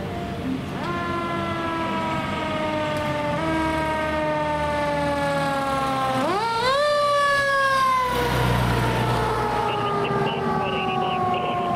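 Fire engine siren sounding on a code 3 run: its wail winds slowly down in pitch, is pushed sharply back up about six seconds in, then winds down again. The truck's heavy engine rumble swells around eight seconds as it goes by, and a fainter higher pulsing tone comes in near the end.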